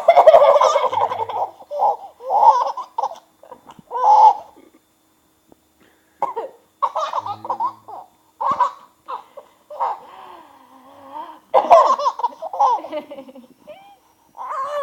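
A baby laughing in a string of laughs, giggles and belly laughs, with short pauses between bursts. The longest bouts come at the start and again near the end.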